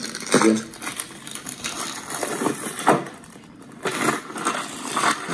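Stiff plastic laminating pouches being handled, with irregular crinkling and crackling and a brief bit of voice about half a second in. It is all played back through a small USB-powered sound bar.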